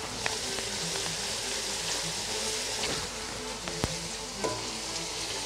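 Chicken keema and spice masala sizzling in a wok while a spatula stirs it, with a couple of sharp clicks of the spatula against the pan.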